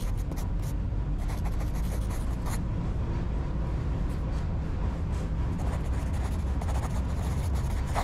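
Tram running, heard from inside the car: a steady low rumble with rattles and clicks over it.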